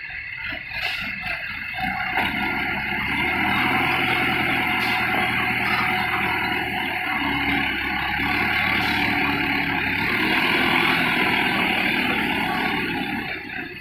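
Godrej forklift's engine running up and holding at higher revs while the hydraulic mast raises the brick clamp, easing off near the end.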